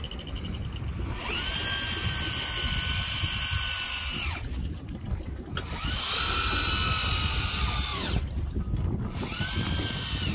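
Electric fishing reel motor winding line in, in three bursts of a few seconds each. Each burst rises in pitch as the motor spins up and drops as it stops, over a steady low rumble of wind and sea.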